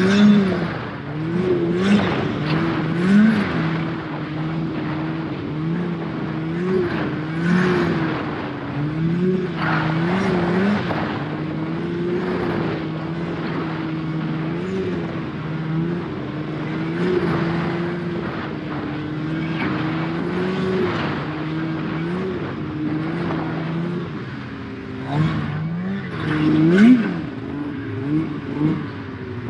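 Snowmobile engine running at a steady speed, with frequent short throttle blips that briefly raise its pitch and a sharper rev near the end.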